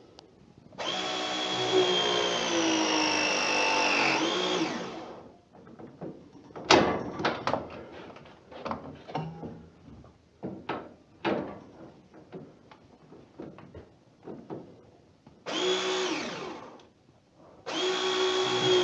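Battery-powered pipe press tool running a press cycle on a pipe fitting: a steady motor whine for about four seconds that drops in pitch as it finishes. Then a stretch of sharp clicks and knocks, a short run of about a second, and a second press cycle starting near the end.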